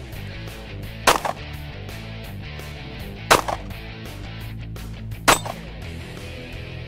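Three pistol shots, about two seconds apart, over background music.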